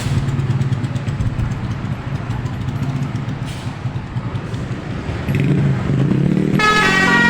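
Tour bus engine running, then about six and a half seconds in the bus's multi-tone 'telolet' horn starts playing a stepping, tune-like melody.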